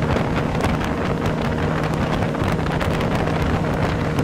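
Vikhr 30 two-cylinder two-stroke outboard motor running steadily at part throttle, driving the boat at about 37 km/h, with wind buffeting the microphone.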